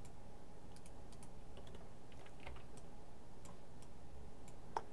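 Scattered light clicks of a computer keyboard and mouse being used, over a low steady hum.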